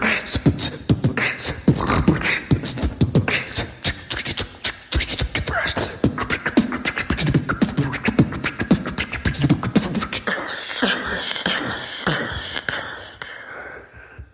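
Human beatboxing: a fast, dense drum beat made with the mouth alone, sharp clicks over low thumps, growing quieter over the last few seconds.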